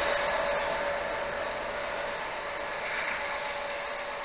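GE diesel-electric freight locomotive running away along the track, its engine noise and a steady hum fading as it recedes into the distance.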